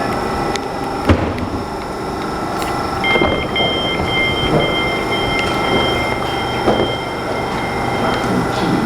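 Gatwick Express Class 387 electric multiple unit running, a steady rumble and hum, with a clunk about a second in. A steady high-pitched tone sounds from about three seconds in and stops shortly before the end.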